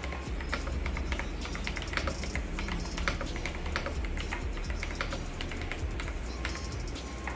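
Typing on a Kreo Swarm wireless mechanical keyboard: a quick, irregular run of key clicks.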